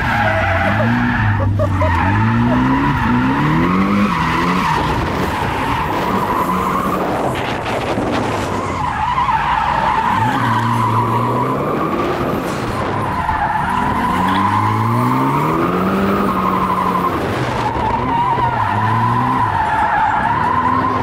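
Drift car's engine revving up and down over and over as it is driven sideways, with long wavering tyre squeals.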